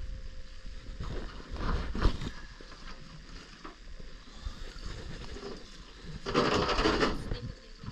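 Knocks and handling noise aboard a fishing boat over a low rumble, with a louder burst of rushing noise a little after six seconds in.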